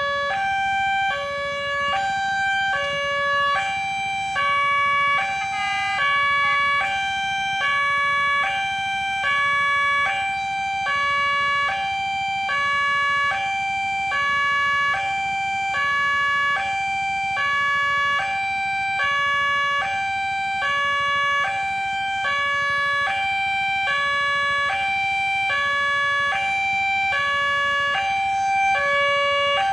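Railway level-crossing warning siren sounding a two-tone hi-lo wail, switching between a lower and a higher pitch about every three-quarters of a second. The tone is harsh and hoarse.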